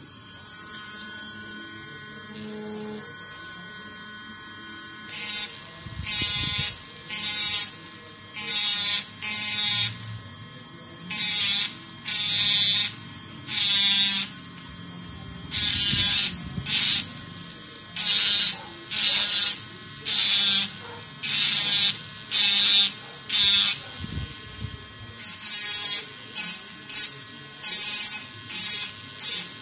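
Small handheld rotary tool with a cut-off disc running, then, from about five seconds in, grinding in short repeated passes about once a second as the disc cuts isolation grooves into copper-clad circuit board.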